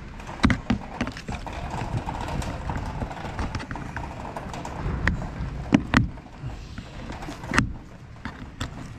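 A plastic push-in trim clip on a car's wheel arch being prised and pushed out: a run of irregular sharp clicks and knocks, the sharpest between about five and eight seconds in, over a steady low background rumble.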